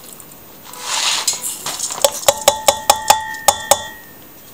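Dry round sushi rice poured into a steel measuring cup with a short hiss. Then about ten quick ringing metallic clinks, roughly five a second, as the steel cup and the stainless steel pot knock together.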